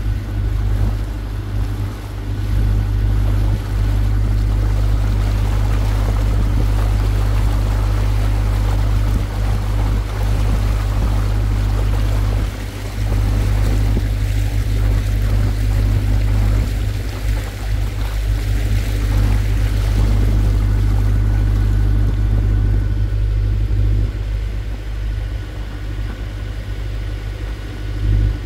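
Water taxi under way: the boat's engine runs steadily while water churns and splashes along the hull. It eases a little near the end.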